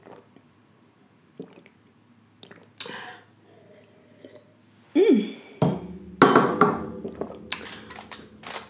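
Mouth noises of sipping and swallowing water from a glass, soft at first, then a run of louder sharp knocks and rustles in the second half as a cucumber spear is picked up off the foil-lined tray.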